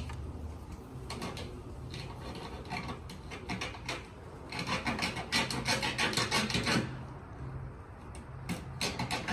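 Rapid dry crunching and crackling in bursts with short pauses, quieter for a while near the end, over a faint steady low hum.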